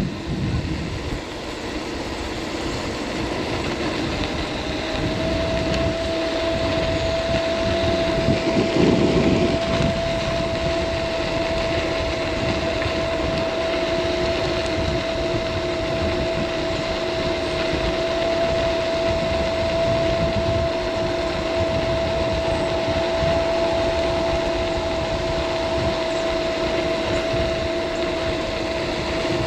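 Hub motor of a Caroma P1 350 W electric scooter running under load on a hill climb, a steady whine that sets in about five seconds in and holds at one pitch. Beneath it a rough rumble of wind and road noise, loudest around a third of the way through.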